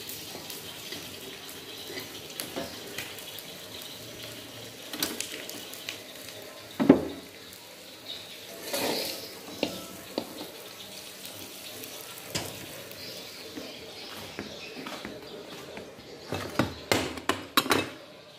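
Kitchen clatter over a low steady hiss: dishes, pots and utensils knocking and scraping. There is a sharp knock about seven seconds in and a quick run of clinks near the end.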